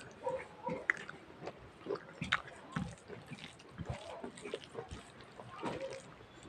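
A person chewing and eating dal bhat and chicken by hand, with irregular wet smacking and clicking mouth sounds.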